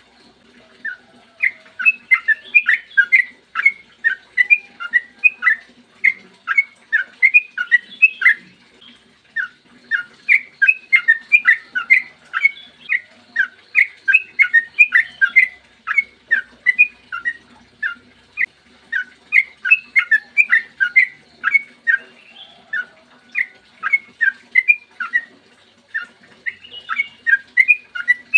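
Yellow-vented bulbul (trucukan) singing a long, fast run of short whistled notes, phrase after phrase with only brief pauses, over a faint low hum.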